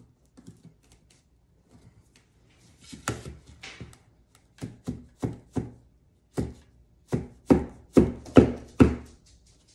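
About a dozen sharp wooden knocks, irregularly spaced and louder near the end, as a sign panel is tapped down into the groove of a wooden frame rail.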